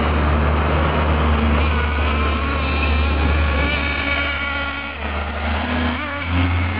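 Traxxas Jato 3.3's TRX 3.3 nitro engine buzzing as the RC truck drives, its pitch rising and falling with the throttle, easing off about five seconds in and picking up again. It is held short of full throttle, so the two-speed gearbox stays in first gear. A steady low rumble runs underneath.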